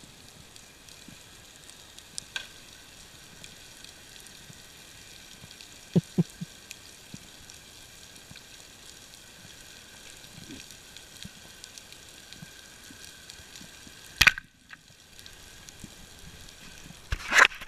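Underwater ambience: a steady fine crackle and hiss with scattered sharp clicks and a few low knocks, the loudest clicks coming about 14 seconds in and just before the end.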